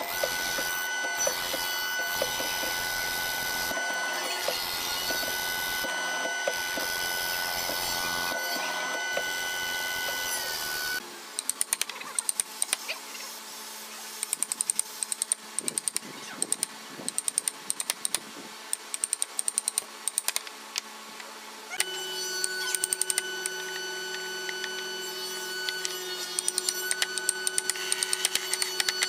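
A drilling machine runs with a steady motor whine as its bit bores into a hardwood block. About eleven seconds in, this gives way to sharp knocks in quick runs: a mallet driving a chisel to chop a square hole in the wood, over a steady machine hum.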